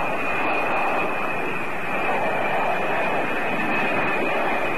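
Jet engines of a low-flying B-52 bomber: a steady roar with a constant high whine, recorded on a camcorder.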